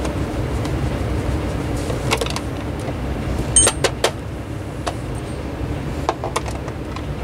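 Sharp clicks and clacks of hand tools and the plastic base parts of a small oscillating fan being handled during disassembly, over a steady low rumble. The loudest are a quick group of three clicks a little past halfway.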